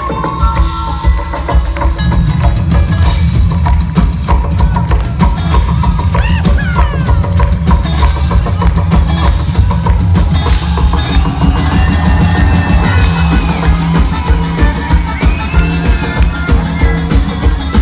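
Live band music with a steady, driving drum-kit beat, the kick drum hitting evenly, while pitched instruments play over it with some gliding notes.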